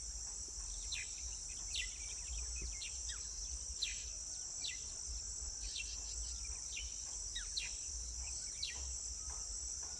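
A steady, high-pitched insect chorus like crickets, with short falling chirps from small birds scattered throughout and a low rumble underneath.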